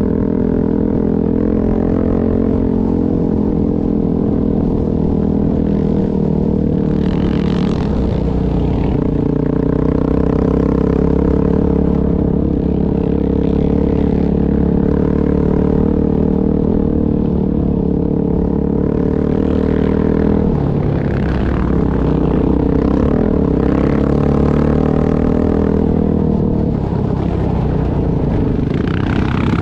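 Dirt bike engine running steadily while riding on a dirt trail; its note dips and climbs again about twenty seconds in.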